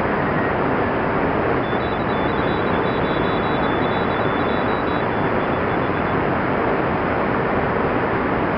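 Shortwave receiver tuned to 14024 kHz in the 20-metre amateur band, in single-sideband mode: steady static hiss with faint, high-pitched Morse code tones keying on and off. The tones come in about two seconds in and fade out past the middle, with two signals at slightly different pitches.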